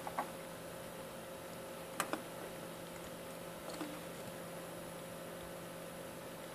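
A few light clicks and taps from handling a perfboard circuit board with plastic screw-terminal blocks, the sharpest pair about two seconds in, over a steady faint hum.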